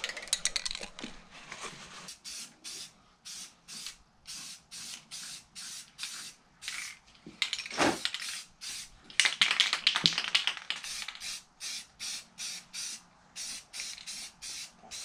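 Aerosol can of primer spraying onto an engine block in short hissing bursts, about two to three a second, with a longer continuous spray about nine seconds in.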